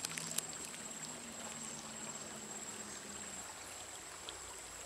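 Shallow river flowing, a faint even rush of water, with a couple of small clicks right at the start.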